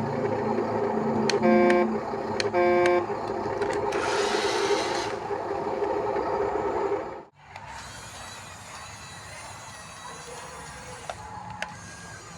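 Two short horn toots over a steady engine-like hum, with a brief hiss a few seconds later. About seven seconds in the sound cuts off sharply to a quieter background.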